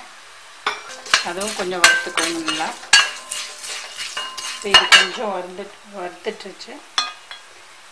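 Metal spoon scraping and clinking against a metal kadai in irregular clatters, stirring roasted gram, peanuts and curry leaves frying in oil.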